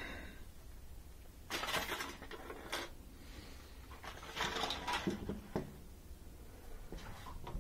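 Metal tools clinking and rattling as they are handled and rummaged through, in two short bursts with a few lighter clicks near the end.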